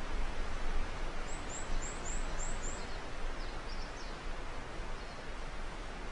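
Outdoor nature ambience: a steady hiss of wind-like noise with small birds chirping, a quick run of high chirps about a second in and a few more calls near the middle.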